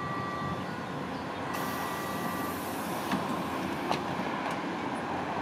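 Berlin S-Bahn class 480 electric multiple unit starting off from the platform, its traction equipment running steadily. A hiss sets in about a second and a half in, and two short clicks follow.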